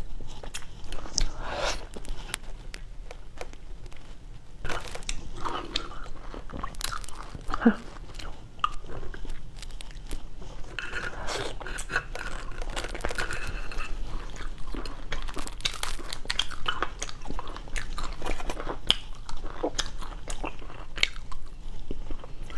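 Close-miked eating of cooked crab legs: thin shell cracking and crunching between the teeth, with chewing and sucking of the meat and many small crackling clicks.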